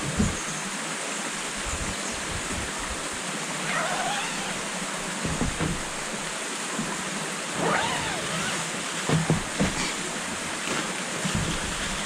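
Valley stream rushing steadily, with a few brief high gliding sounds about four and eight seconds in.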